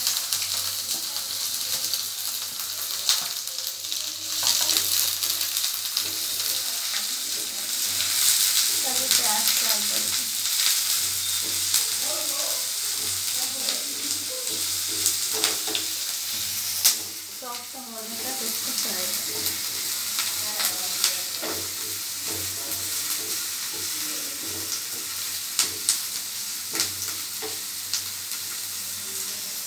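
Chopped onions sizzling as they fry in hot oil in a nonstick frying pan, stirred with a silicone spatula that scrapes and clicks against the pan now and then. The sizzle dips briefly about two-thirds of the way through.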